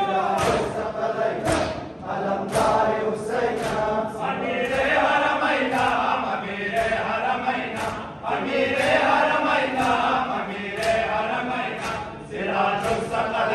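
Crowd of Shia mourners chanting a noha together, with sharp hand-on-chest slaps of matam (ritual chest-beating) landing in time about once a second.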